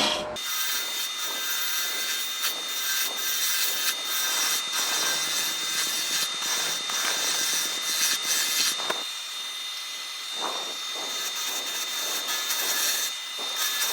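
Hunter Hercules carbide hollowing tool cutting into spinning monkey puzzle wood on a lathe: a rough scraping hiss over a steady high whine. The cutting eases off briefly about two-thirds of the way through, then resumes.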